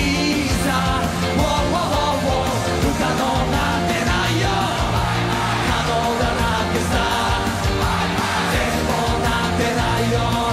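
Live pop-rock band performance: male vocalists singing into microphones over a full band with a steady driving beat, with some shouted lines.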